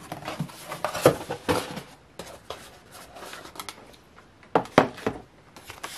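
Cardboard doll box being handled and turned over: scattered rustles, taps and scrapes of paperboard. The sharpest are a tap a little after a second in and two more in quick succession later on.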